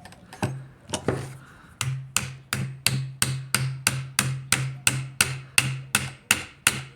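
Hammer blows driving a dry sycamore spindle down into an electric drill: two strikes, then a steady run of about three blows a second.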